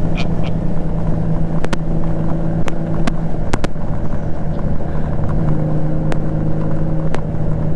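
Honda Gold Wing GL1500 flat-six engine running steadily at highway cruising speed, an even drone mixed with wind and road rush. A few short, sharp clicks come through it.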